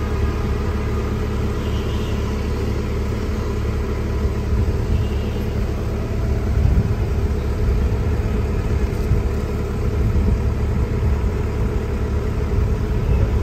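Excavator's diesel engine running steadily, with a slight rise in loudness about halfway through.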